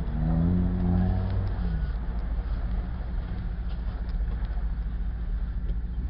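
Off-road sand rail's engine revving briefly in the first couple of seconds as it pulls away up a dirt trail, then a steady low engine rumble.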